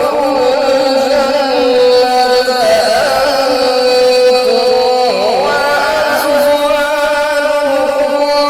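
Melodic Quran recitation by a solo voice, holding long notes with ornamented turns in pitch.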